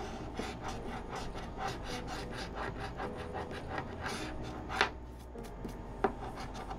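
A coin scratching the coating off a lottery scratch-off ticket in quick back-and-forth strokes, about four or five a second, followed by two sharp clicks near the end, the first the loudest sound.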